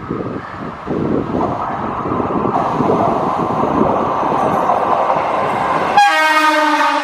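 Rumble of a WAP-4 electric locomotive-hauled express and a three-phase EMU local train running side by side. About six seconds in, the sound changes abruptly to a locomotive horn blowing one steady note.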